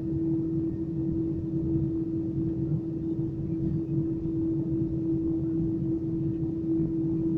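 Steady cabin noise inside an Airbus A320 taxiing with its jet engines at idle: a low rumble with one constant hum held at the same pitch throughout.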